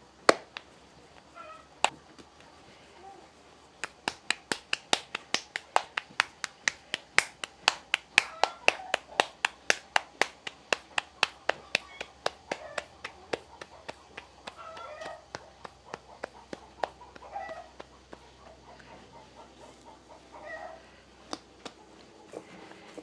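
Hands patting a ball of masa back and forth between the palms to shape a thick tortilla (gorda). There are a few scattered pats at first, then a quick, even run of slaps at about three to four a second from about four seconds in to about fourteen, then occasional pats again.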